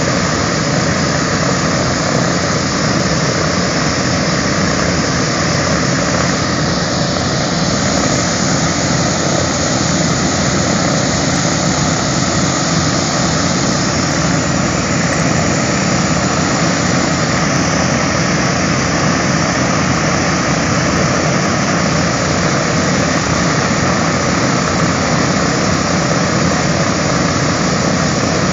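Radial piston engines of a B-17 Flying Fortress, its nine-cylinder Wright R-1820 Cyclones, running steadily after start-up, with a second bomber's engines behind them. The sound holds level with no change in pitch.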